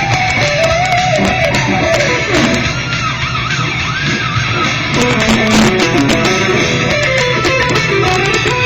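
Distorted electric guitar lead played through a small Crate 20-watt practice amp, a fast solo line with bends and slides, over the original recorded heavy metal guitar solo playing underneath.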